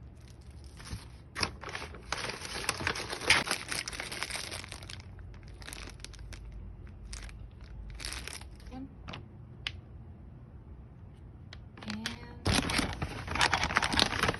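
Plastic packaging crinkling and rustling as accessories are handled and unwrapped, in two longer bursts with scattered crackles between.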